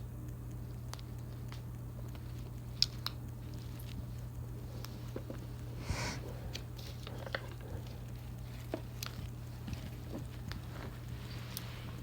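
Pet cockatoo nibbling and chewing at something held in its beak, heard as scattered small clicks and crunches, with a short rustling burst about halfway through. A steady low hum runs underneath.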